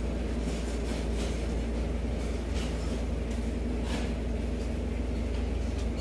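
Steady low rumble of street background noise, with a few faint soft clicks.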